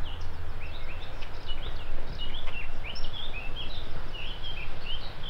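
Small songbirds singing, a rapid string of short chirping notes, over a steady low rumble.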